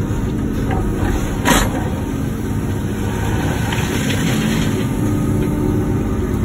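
Wacker Neuson ET145 excavator's diesel engine running steadily, with a short sharp noise about a second and a half in.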